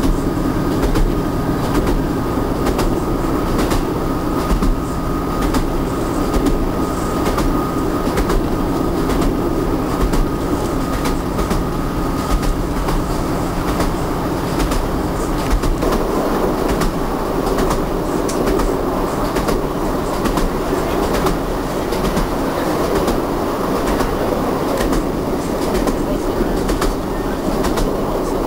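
Train running over jointed rail: a steady rolling rumble with the clickety-clack of wheels crossing the rail joints.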